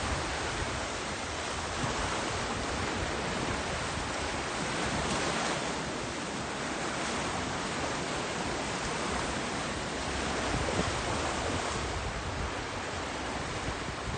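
Small sea waves washing in over sand and rocks at the shoreline: a steady rushing wash that swells and eases every few seconds.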